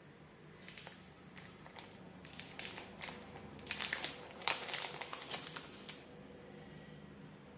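Crinkling and crackling handling noise with quick light clicks, loudest about four seconds in and dying away soon after.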